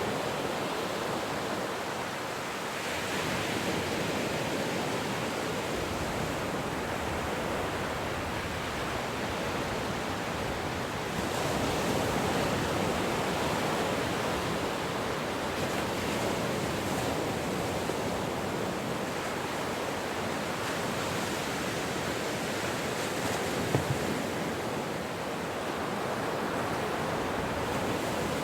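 Ocean surf: a steady wash of breaking waves that swells and eases slowly, with a short sharper spike near the end.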